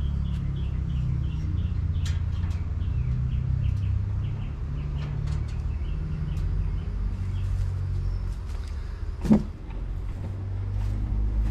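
Homemade stainless-steel propane smoker with its burner lit, a steady low rumble, while wire racks of fish are slid into it with light metal clicks and scrapes. There is one sharp metal clank about nine seconds in.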